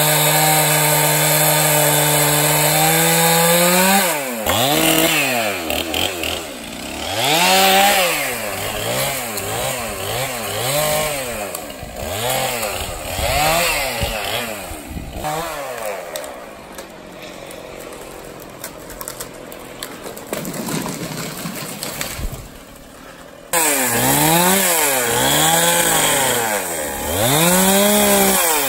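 Two-stroke chainsaw held at full throttle, then cutting into a downed log: the engine pitch dips under load and climbs back again and again, about once a second. It runs quieter for several seconds past the middle, then comes back loud with the same dipping and rising.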